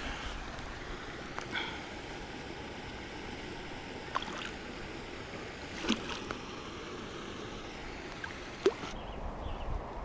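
Water sloshing and splashing around a landing net lowered into a canal as a pike is released from it, with a few short sharp splashes over a steady watery hiss.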